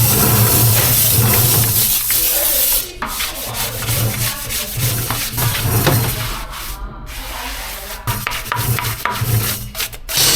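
Rough, continuous sanding and rubbing, typical of tire rubber being buffed before a hot-vulcanised patch. It breaks off briefly about three seconds and seven seconds in.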